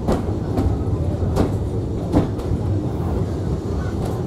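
Vintage Metropolitan Electric Tramways tramcar 331 running along, heard from inside the saloon: a steady low rumble from the running gear with irregular clicks and knocks of the wheels on the track.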